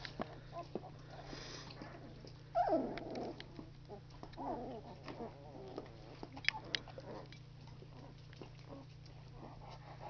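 Two-week-old Labrador retriever puppies whimpering: a whine falling in pitch about two and a half seconds in, and a softer one about a second and a half later, among small clicks and rustles.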